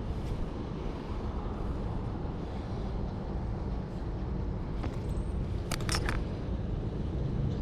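Road traffic from cars passing near the creek: a steady low rumble. A few sharp clicks come about five to six seconds in.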